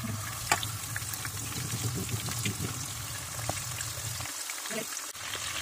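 Masala-marinated quail pieces frying in hot oil in a pot: a steady sizzle with small scattered pops and crackles.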